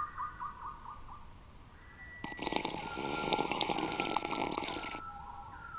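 Running, splashing water with small drips and clicks, starting abruptly about two seconds in and cutting off suddenly near the end, over faint steady high tones.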